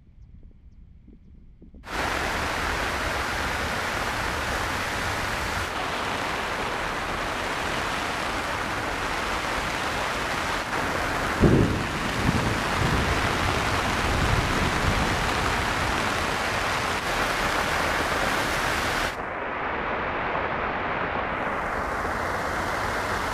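Heavy rain pouring steadily; it starts abruptly about two seconds in. About halfway through, a clap of thunder breaks through and rumbles on for a few seconds under the rain.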